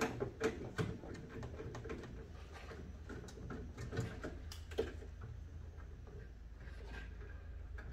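Faint scattered clicks and taps of a hand tool and plastic parts as the screws holding an ice maker's cutter grid are worked loose, over a steady low hum.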